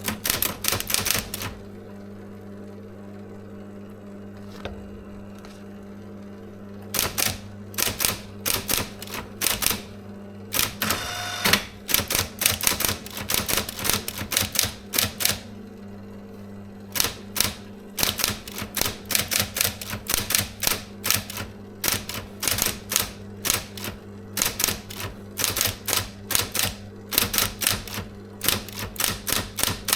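SIGMA electric SM 7800 K electric typewriter typing: quick runs of sharp key strikes, stopping for several seconds early on while the motor's steady hum carries on. A short whir comes about eleven seconds in.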